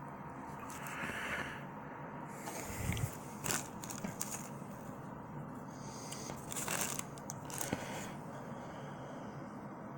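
A person chewing food close to the microphone, with a few short rustling and handling noises scattered through.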